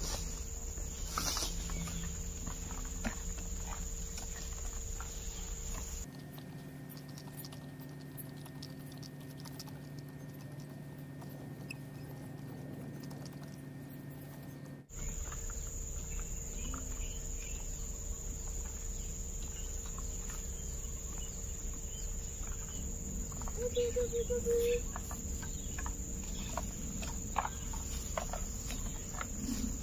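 Outdoor ambience in an overgrown plantation: a steady high insect drone with scattered light crackles and rustles of dry leaves and brush underfoot. A brief warbling call stands out about three quarters of the way through.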